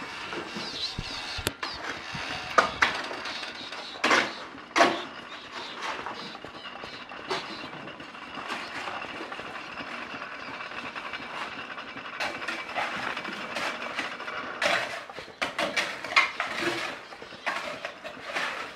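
Well-digging crane's winch and pulley paying out rope to lower a tyre-weighted hook into the well: a steady mechanical running with scattered clicks and knocks.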